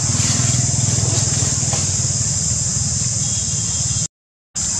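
Steady low rumble under a constant high hiss, with faint rustles. About four seconds in it cuts out to complete silence for a moment, then resumes.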